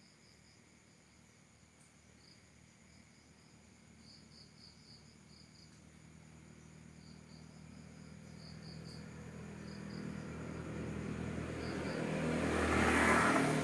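Crickets chirping in short irregular pulses over a faint steady hiss. From about halfway, a motor vehicle approaches, its engine and road noise growing steadily louder until it passes close near the end.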